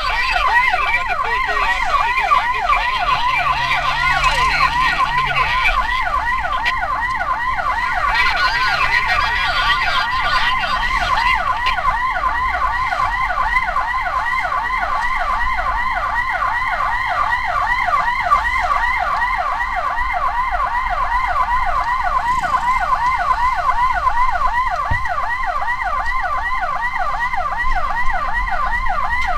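Ambulance siren in a fast yelp, its pitch rising and falling several times a second without a break, over a low steady road rumble.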